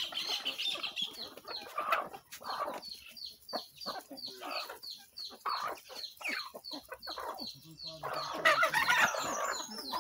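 Backyard chickens clucking as they crowd in to feed, with a long run of quick, high, evenly spaced peeps repeating a few times a second through the middle, and a louder jumble of calls near the end.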